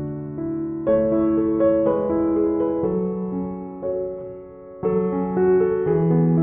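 Slow piano music, held chords changing about once a second.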